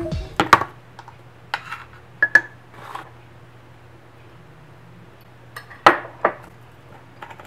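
Scattered clinks and knocks of kitchen handling: a metal spoon tapping in a ceramic mug and containers set down on the countertop, a few ringing briefly, the loudest pair of knocks about six seconds in.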